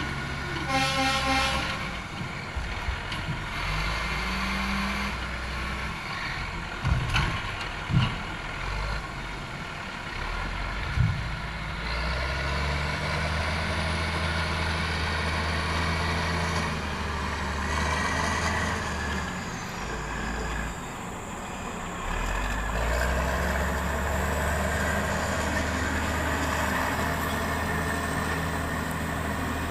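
CAT wheel loader's diesel engine running and revving under load as it drives and works its log grapple, its pitch rising and falling. A few sharp knocks about a third of the way through.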